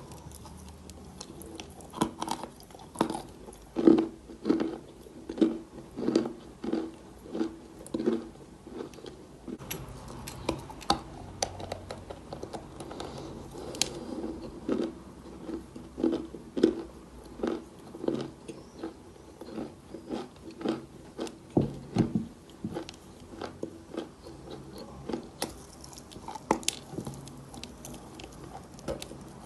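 Close-miked chewing of chalk: a steady run of dry crunches, about one to two a second, with a couple of short pauses.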